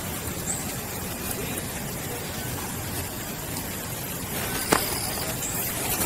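Steady low rumble of an idling vehicle engine, with one sharp click about three-quarters of the way through.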